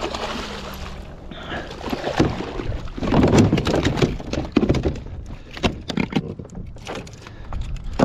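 A hooked jack crevalle splashing at the surface beside a kayak, then flopping and knocking against the plastic kayak as it is hauled aboard. The first second is a wash of splashing; from about three seconds in there is a dense run of sharp knocks and slaps.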